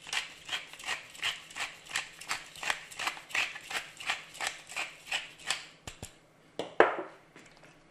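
Wooden pepper mill being twisted, its grinder clicking about three times a second; the grinding stops after about five and a half seconds. A single louder knock follows near the end.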